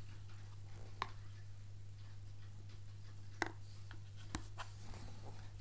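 Hands handling a smartphone in a rugged aluminium-and-rubber waterproof case: a few faint clicks and taps, one about a second in and more in the second half, over a steady low hum.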